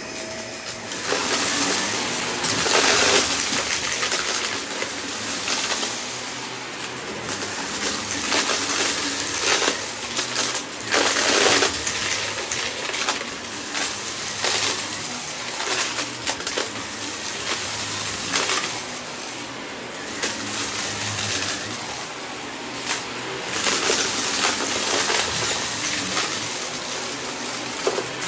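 Shark upright vacuum cleaner running over a shag rug, sucking up scattered crunchy bits of debris that crackle and rattle as they are pulled in. The crackling gets louder about a second in and comes in surges as the head is pushed back and forth.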